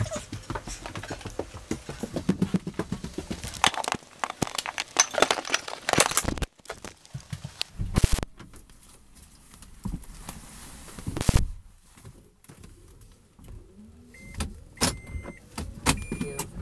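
Rustling and scattered knocks for the first few seconds, then a car's driver door opening with a loud click and, a few seconds later, shutting with a thud, with keys jangling. Near the end the car's dashboard gives a series of short high beeps.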